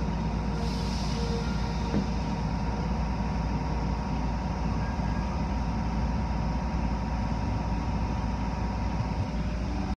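Automatic car wash running, heard from inside a car in the wash: a steady low rumble with a machine hum, and a brief hiss of spray about a second in.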